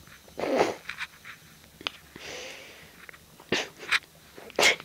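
Dogs nuzzling face to face, giving short breathy huffs and snuffles: one about half a second in, a softer hiss of breath around the middle, then several quick huffs near the end.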